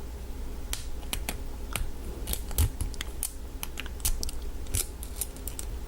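Lock pick and tension wrench working the pins inside an American 1100 padlock during single pin picking: a series of small, sharp, irregular metallic clicks, a few each second, as pins are lifted and set.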